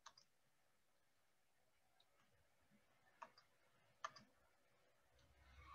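Near silence broken by a few faint, short computer-mouse clicks: one at the start, then two about three and four seconds in.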